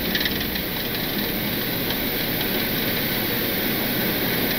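Steady cockpit noise of an Embraer E-190 at takeoff thrust during rotation and lift-off: an even roar of airflow and engines. The low rumble eases after about a second and a half as the aircraft leaves the wet runway.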